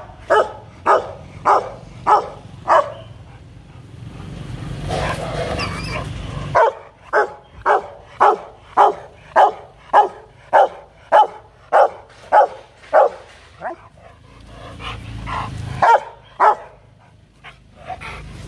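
Rottweiler barking in runs of loud, repeated barks: a handful at the start, a steady run of about a dozen at roughly two a second in the middle, and a few more near the end. This is demand and threat barking from an agitated dog.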